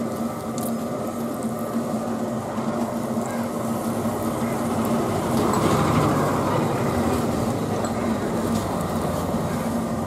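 Motor-driven potter's wheel running with a steady mechanical hum, swelling a little louder in the middle.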